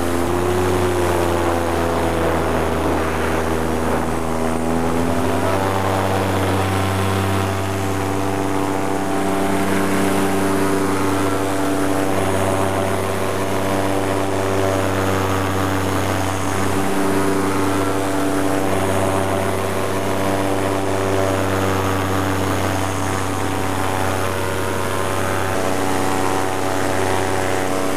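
Paramotor engine and propeller running steadily in flight, with a small step up in pitch about five seconds in.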